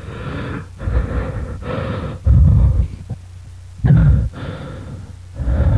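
Heavily distorted, garbled voice-like noise in bursts over a steady low hum, with deep thuds about two seconds in, near four seconds and near the end: a horror sound effect standing for the voices the man hears.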